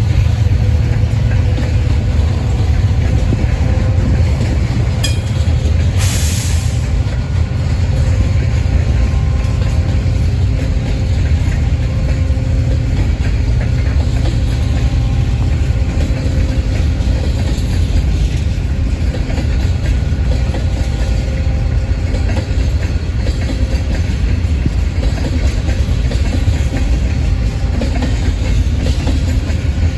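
Florida East Coast Railway freight train passing, a steady low rumble of rail cars rolling on the track, with a brief hiss about six seconds in.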